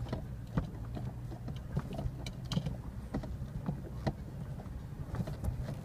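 Inside an off-road vehicle crawling over a rocky dirt trail: the engine runs low and steady under irregular knocks and rattles as the tires climb over rocks and the body jolts.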